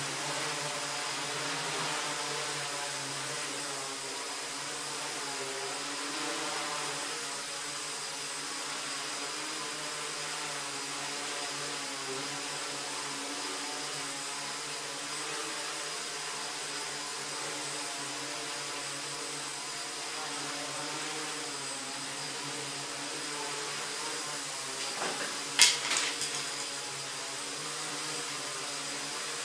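Multirotor tricopter in a steady hover, its three motors and propellers giving a constant whir with a thin high whine. About 26 seconds in there is a brief sharp clack, the loudest sound in the stretch.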